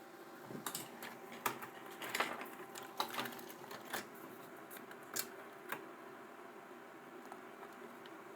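Small sharp clicks and taps of tools on the amplifier's circuit board while solder joints are reflowed, scattered unevenly through the first six seconds, over a faint steady hum.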